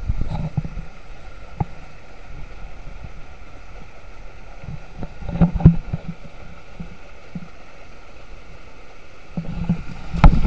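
Steady rush of water running through the waterslides, with a low rumble and a few knocks or bumps about halfway through and near the end.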